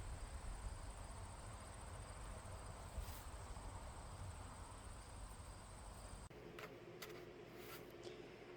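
Faint, steady high-pitched trill of insects, most likely crickets, over a low outdoor rumble. It cuts off abruptly about six seconds in, and a few faint clicks and handling sounds follow.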